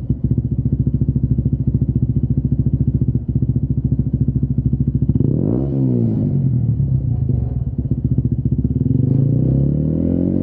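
Honda CBF125's single-cylinder four-stroke engine running through a Lextek OP1 aftermarket silencer. It idles with an even pulse and is blipped once, briefly, about five seconds in. Near the end it is revved slowly and steadily higher.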